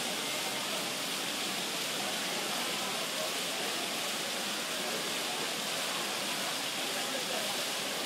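Steady rush of water falling in a curtain from an indoor fountain into its pool, with a faint murmur of voices underneath.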